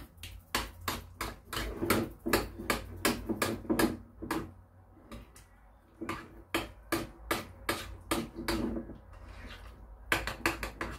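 A stirring utensil knocking and scraping against a bowl in quick, irregular clacks, about three a second with a short lull about halfway, as a Schmand (sour cream) mixture is stirred.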